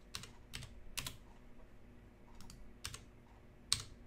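Computer keyboard keystrokes: about six separate, irregularly spaced key presses, the sharpest one near the end.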